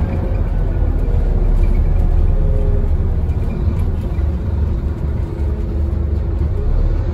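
Scania N230UD double-decker bus heard from inside while driving: a steady low rumble of its five-cylinder diesel engine and ZF automatic gearbox under way, mixed with road noise, with a faint whine over it.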